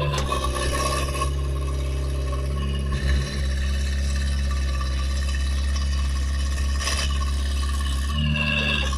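Excavator's diesel engine running steadily at a constant pitch.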